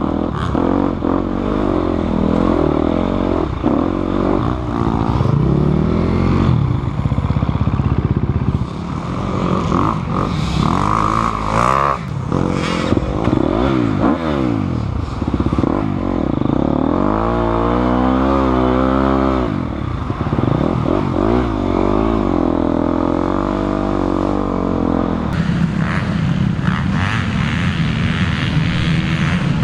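Motocross dirt bike engine heard from on board, revving up and dropping back again and again as the rider works the throttle through the gears and corners. Near the end it gives way to the sound of several dirt bikes running around the track, heard from the side.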